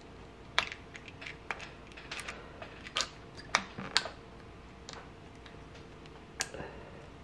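Irregular small sharp clicks and ticks of circlip pliers and metal parts being handled on a motorcycle rear brake master cylinder as its circlip is worked.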